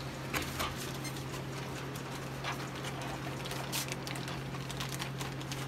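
Scattered light clicks and taps over a steady low hum.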